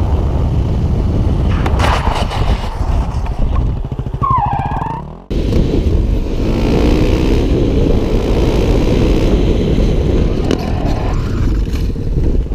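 Motorcycle engines running and revving as heard from a rider's helmet camera, loud throughout. The sound drops out abruptly about five seconds in and then resumes.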